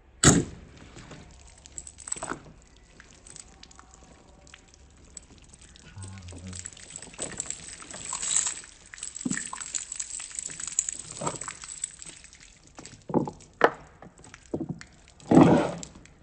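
Restored hunting knife slashing repeatedly through a water-filled plastic bottle: a sharp hit just after the start, several more through the middle and a longer, loud one near the end, with water sloshing and pouring out of the cuts between them.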